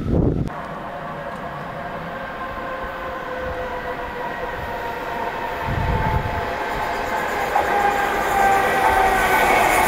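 A Bombardier Electrostar electric multiple unit approaching, its traction motors whining in several steady tones that grow louder and fall slowly in pitch as the train slows.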